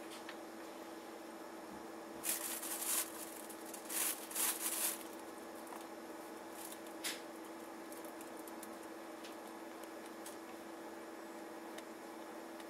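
A few short bursts of rustling noise, grouped in the first half, over a steady low hum.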